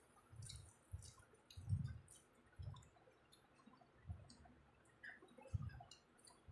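Faint eating sounds from chicken biryani and curry being eaten: wet mouth clicks and squishes with soft low thuds at irregular intervals, about one every second.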